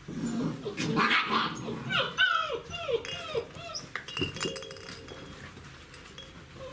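Czechoslovakian wolfdog puppies yelping and whining in play, with a quick run of short, falling yelps a couple of seconds in.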